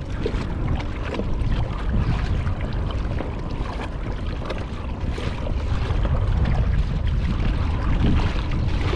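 Steady wind buffeting the microphone, with water lapping against a plastic kayak's hull.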